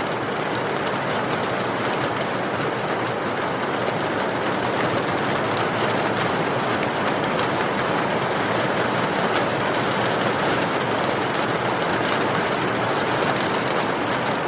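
Steady rain falling, with a wood fire crackling in small scattered pops.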